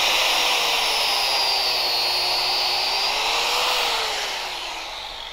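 Harbor Freight 4-inch angle grinder with a cutoff disc running and cutting through a carpet-cleaning solution hose, its motor whine wavering in pitch under load. From about four seconds in it fades as the disc spins down.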